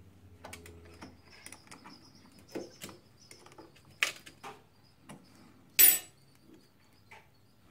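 Small metallic clicks and ticks of a ring spanner working a bleed nipple out of a motorcycle brake caliper, the nipple tight on its threads. There is a sharper clack about four seconds in and a louder metal clack just before six seconds as the spanner is set down on the steel bench.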